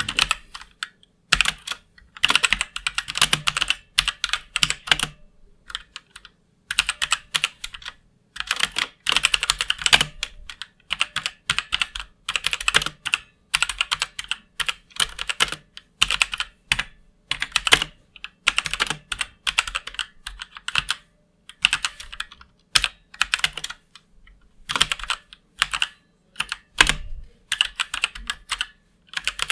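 Typing on a MeToo Zero mechanical keyboard with Outemu red linear switches, keys clacking in quick runs broken by short pauses.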